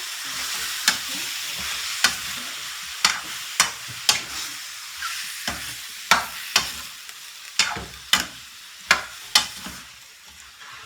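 Chicken pieces sizzling in hot oil in a pan while being stirred, the utensil clacking against the pan a dozen or so times at irregular intervals.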